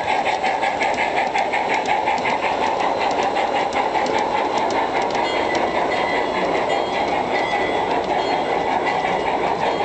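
G gauge model train running along the track, its wheels clicking rapidly and regularly over the rail joints over a steady running rumble.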